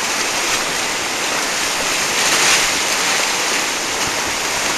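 Whitewater rapids rushing steadily around a paddle raft as it runs the rapid, an even, loud churn of water.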